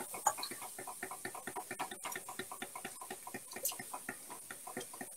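Wire whisk clicking rapidly and evenly against the sides of a stainless steel saucepan as a béchamel sauce is whisked while it thickens.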